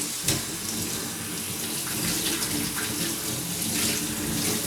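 Tap water running steadily while a floor-washing cloth is rinsed under it, with a short knock just after the start.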